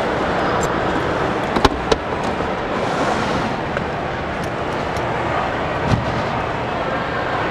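A storage-cabinet drawer being handled and pulled open, giving two sharp clicks about a second and a half in and a dull knock near six seconds. Under it runs a steady background rumble.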